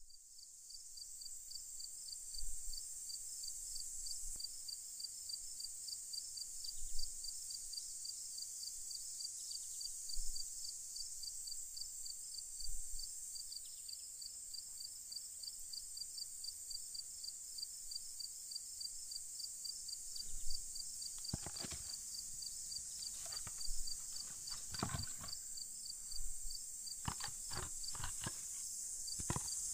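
A steady chorus of night insects with a rapid, even pulsing trill. About two-thirds of the way in, a series of sharp wooden knocks comes from split firewood logs being set down and stacked on a pile.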